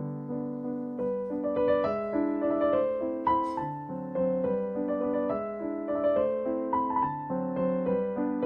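Background music: a gentle piano melody with a steady run of notes.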